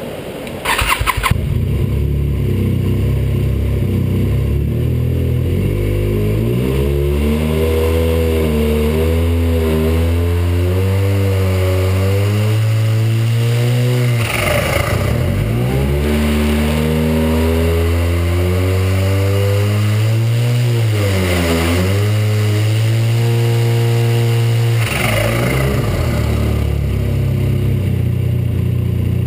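Arctic Cat 1100 turbo three-cylinder four-stroke snowmobile engine starting about a second in, then idling and being revved up three times, each time dropping back sharply as the throttle is let off, with a short rush of noise at each let-off. The factory boost recirculation valve stays shut when the throttle closes.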